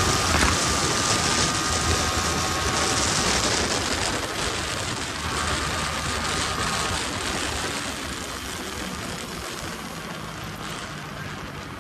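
Yamaha R15 single-cylinder sport motorcycle riding at highway speed, its engine running under wind rush on the rider's microphone. The noise gets quieter over the last few seconds as the bike slows down.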